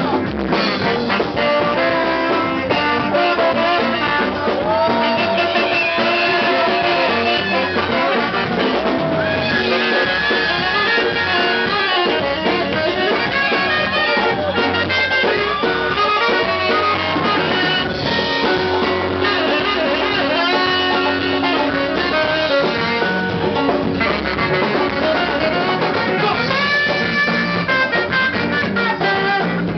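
A live band playing, with horn lines on saxophone and trombone over electric guitar, bass, keys and percussion.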